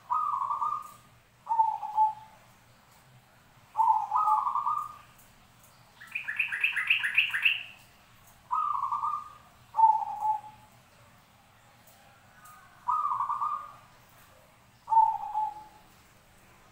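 Caged zebra doves (perkutut) cooing: short phrases of about a second each, repeated every second or two. About six seconds in comes a faster, higher run of rapid notes.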